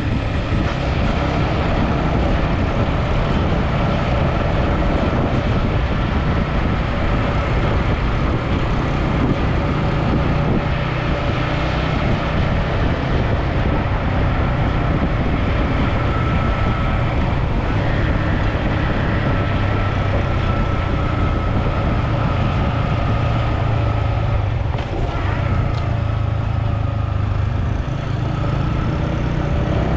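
Steady vehicle engine and road noise on the move, running evenly with no clear change.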